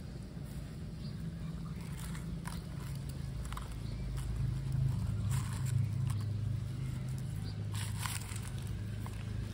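Fingers mixing raw rice, lentils, spices and chopped vegetables in a small clay pot, giving soft scattered crunches and clicks. A steady low hum runs underneath and is the loudest sound, swelling a little toward the middle.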